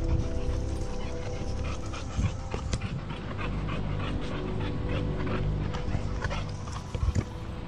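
A German Shepherd and a young Renascence Bulldogge play-wrestling and panting, with many short scuffs and snaps of feet on leaf litter and twigs.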